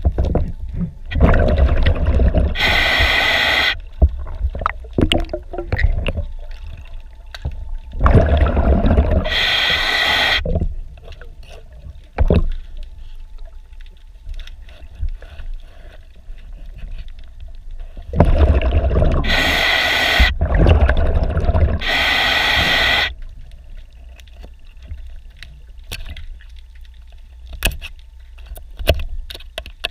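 A scuba diver's breathing regulator heard underwater: three loud spells of breathing, each a bubbling exhale and a hissing draw through the demand valve. Between them come quiet water noise and, near the end, quick ticks and scrapes of a hand scraper working on the hull around a through-hull strainer.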